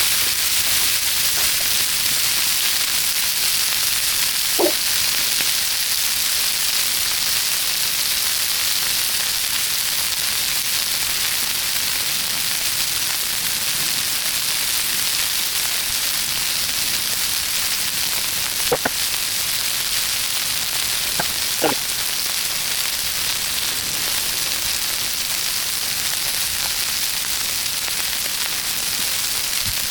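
Chicken tenders frying in oil on a hot Blackstone flat-top griddle: a steady sizzling hiss, with three brief faint clicks.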